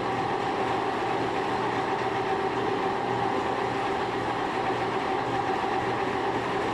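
Metalworking machinery running steadily: an even mechanical noise with a constant hum of several fixed tones, no pauses or changes.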